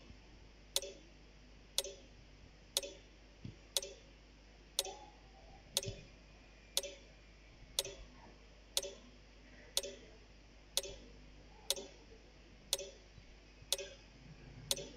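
Quiz countdown timer ticking like a clock, one sharp tick every second, steady and fairly quiet.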